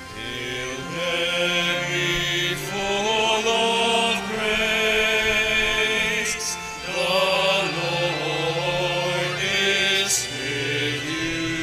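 Hymn singing with organ accompaniment in a church: slow, held vocal notes with a wavering vibrato over a steady organ bass.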